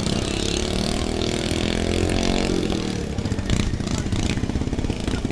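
Racing lawn tractor engines running hard. One engine's note is strongest and climbs slightly over the first two and a half seconds, then fades into a rougher mix of engine noise.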